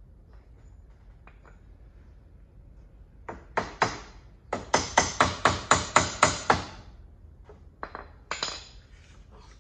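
Hammer striking the steel front leaf-spring mounting hardware of a Club Car DS golf cart, knocking the spring and its bolt into line with the mount. A few separate blows come first, then a quick run of about nine strikes at roughly five a second, each with a short metallic ring, and two more knocks near the end.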